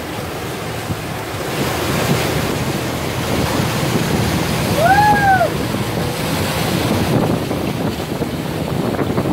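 Water rushing and splashing along the hull of a fast-moving outrigger boat in a turn, with wind buffeting the microphone. About halfway through a short tone rises and falls once.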